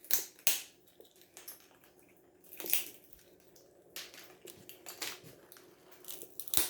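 A pet cracking and crunching a walnut: a run of sharp, irregular cracks and crunches, loudest near the start, about two and a half seconds in and near the end.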